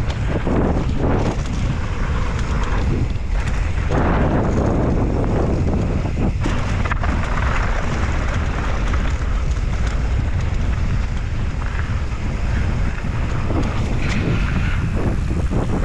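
Wind buffeting the microphone: a steady, loud low rumble with a rushing hiss over it.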